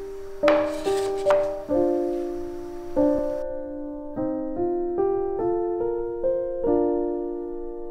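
Gentle background piano music: single notes and chords struck roughly once a second, each ringing out and fading. Under it is a faint hiss that cuts off about three and a half seconds in.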